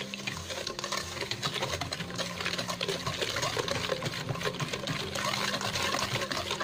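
Wire whisk beating eggs, sugar and syrup in a stainless steel bowl: a rapid, continuous clatter and scrape of the wires against the metal, with a wet slosh of the liquid batter.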